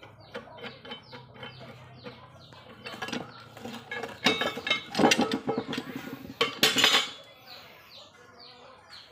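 Steel clanking and rattling as a homemade rebar bar clamp is handled, with its screw jaw and ribbed bar knocking together in a run of loud clatters around the middle. A bird chirps repeatedly throughout in short falling chirps.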